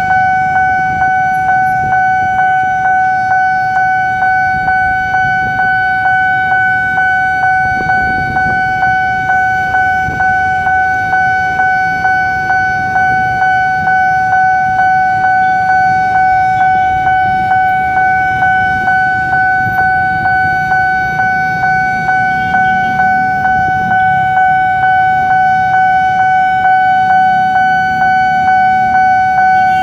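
Railway level-crossing warning bell ringing one loud steady tone, struck a little under twice a second without pause, signalling that the crossing is closed for an approaching train. Motorcycle and car engines idle and rumble underneath.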